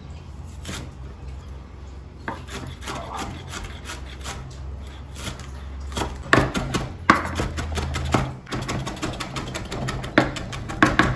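Chef's knife chopping fresh coriander on a bamboo cutting board: a few scattered knocks at first, then a quick, steady run of chops from about six seconds in.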